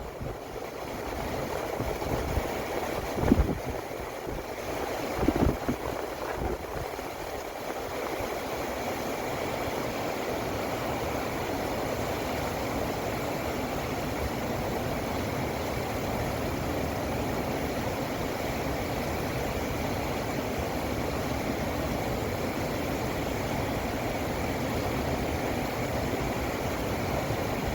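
Steady rushing roar of river rapids, the Lachine Rapids in winter. A few low thumps come in the first several seconds.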